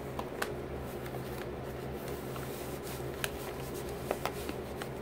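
Paper rustling, with a few short, sharp crinkles, as stuffing is pushed into a taped paper pillow by hand, over a steady low hum.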